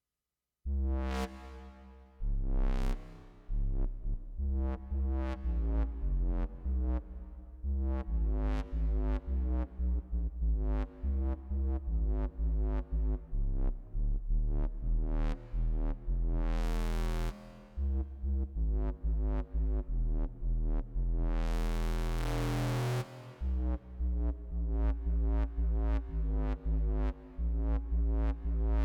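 Electronic music played on an MPC One sampler with hardware synthesizers, starting under a second in: a heavy synth bass line under a steady run of drum-machine hits, with two rushing noise sweeps about halfway through.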